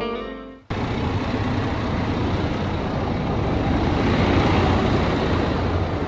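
Slide-guitar music fades and cuts off under a second in, giving way to a box truck's engine idling steadily: a low hum under an even rushing noise.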